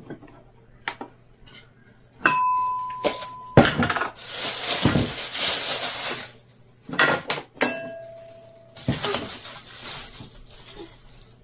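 Sugar poured and spooned from a plastic bag into a glass bowl: rustling of the bag and a hiss of falling grains, twice, with light clinks against the glass. Two held beeps sound, a higher one a little over two seconds in and a lower one shortly before the second pour.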